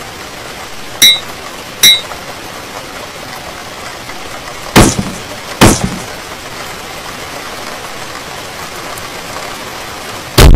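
Sharp impact sound effects for a fight over a steady hiss: two short hits with a brief ringing tone about a second in and just before two seconds, two heavier hits around five to six seconds, and a loud one at the very end.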